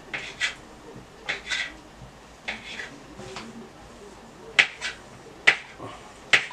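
Kitchen knife cutting smoked sausage into small sticks on a cutting board: about ten sharp, irregular taps of the blade striking the board.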